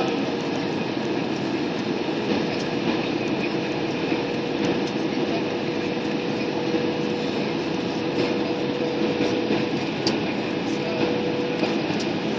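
Airliner cabin noise during landing: a steady roar of engines and rushing air with a faint steady hum over it.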